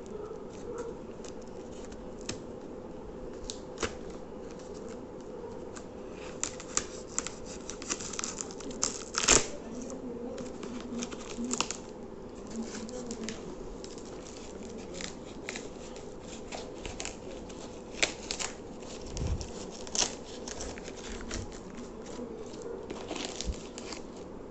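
Parcel packaging being torn open and crinkled by hand: irregular tearing, rustling and sharp crackling snaps, the loudest about nine seconds in.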